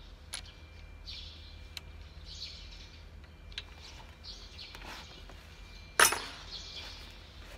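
Light metallic clicks and one sharp metal clank about six seconds in, the loudest sound, from tools and parts being handled on the open cylinder head of a Nissan GE13 diesel engine, over a low steady hum.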